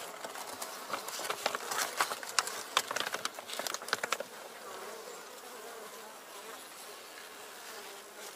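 Honeybees buzzing in an opened hive. Over the first half, plastic hive film is crinkled and the hive's wooden parts click as they are handled; after that the buzzing goes on alone.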